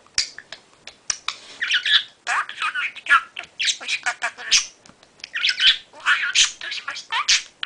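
Budgerigar chattering: a steady run of short, scratchy calls and warbles, with a few brief sharp clicks between them.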